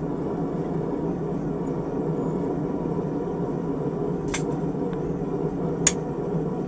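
Two sharp metal clinks about four and six seconds in, the second louder, from an iron hold-down bar set against the glowing steel bar on the anvil. Under them is a steady low rushing noise.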